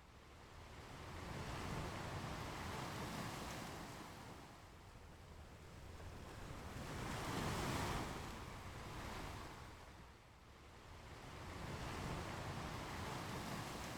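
Ocean waves breaking and washing up on a beach, swelling and fading in slow surges every four to five seconds, the biggest about halfway through.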